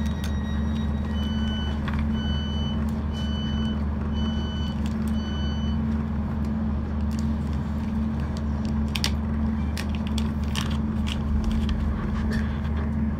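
Train door-closing warning: five short beeps about a second apart, over the steady low hum of the stationary train's idling engine, followed by a few scattered clicks and knocks.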